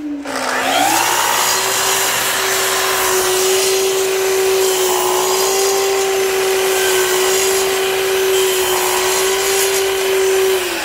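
Festool Kapex sliding miter saw's motor spinning up just after the start and running at a steady pitch while the blade cuts a shallow groove into a wooden piece. It slows down right at the end as it is switched off. The attached dust extractor hisses throughout.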